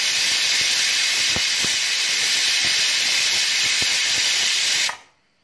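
Pressure cooker whistle: a loud, steady hiss of steam escaping from the weight valve, with light ticks through it, that cuts off suddenly near the end. The whistle is the sign that the cooker is at pressure, and it is counted to time the rice.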